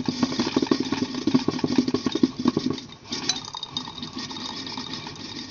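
Electric motor of a coffee-bar machine running with a dense, fast rattle, dropping to a quieter, lower run about three seconds in.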